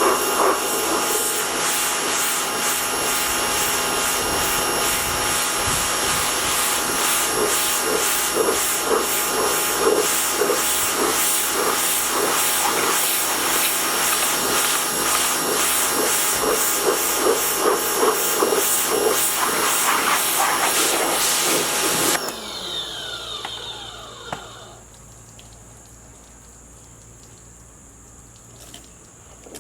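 Harbor Freight Portland electric pressure washer running, its motor and pump whining steadily under the hiss of the spray. About 22 seconds in it shuts off and the motor winds down in a falling whine.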